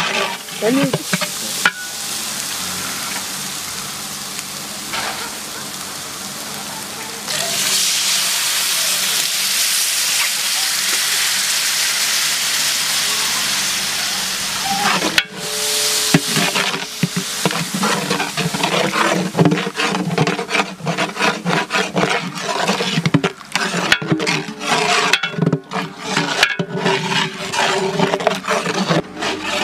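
Spice masala frying in oil in a large metal pot, sizzling steadily, the sizzle growing much louder about a quarter of the way in. From about halfway a long steel spatula scrapes and clatters against the pot in quick, uneven strokes as the masala is stirred.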